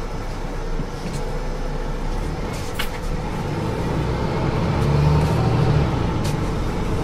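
Mercedes-Benz Citaro C2 city bus running, its low engine hum growing louder about four seconds in and easing again near the end, with a few short clicks.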